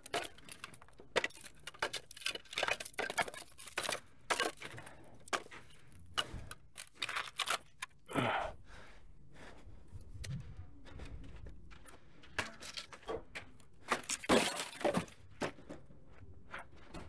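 Irregular scrapes, clinks and knocks of hand tools and materials being handled while a fence post is set in concrete, with two louder sweeping scrapes about 8 and 14 seconds in.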